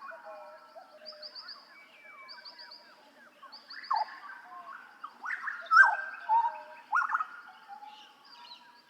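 Papuan butcherbird calling: loud, sliding whistled notes about four seconds in and again several times between five and seven seconds in, over softer chirping from other birds and a fast high trill early on.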